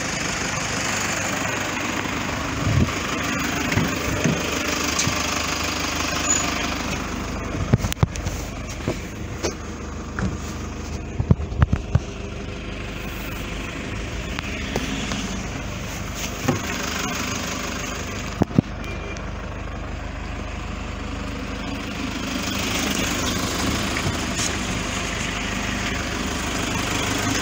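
Toyota HiAce's 3000 cc diesel engine idling steadily, with a few sharp knocks and clicks in the middle.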